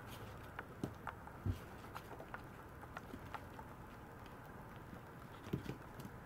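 Faint scattered taps and light clicks of a Maltese puppy's paws shifting on a tiled floor, with a soft low thump about a second and a half in and a few more taps near the end.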